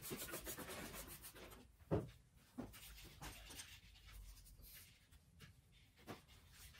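A trigger spray bottle hissing out several quick squirts of isopropyl alcohol, then a cloth rubbing and wiping along the metal fork legs. A sharp knock comes about two seconds in, with fainter knocks later.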